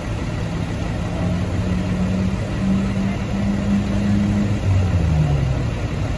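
Vehicle engine running under load, its pitch creeping up over several seconds and then falling away about five seconds in.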